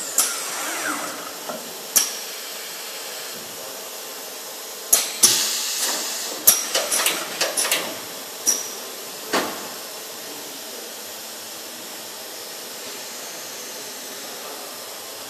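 Pneumatic clamps and gripper of an automated aluminium-profile machining line cycling: sharp metallic clacks of air cylinders actuating, with a burst of several in quick succession about five to eight seconds in, over a steady hiss of compressed air and machinery.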